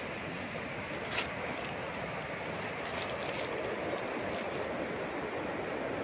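Steady rushing of a river, with a sharp click about a second in and a few fainter ticks.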